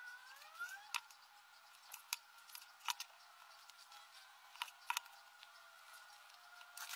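Faint, scattered clicks and ticks from handling craft materials: red pipe cleaners being wound and pressed onto a styrofoam ball.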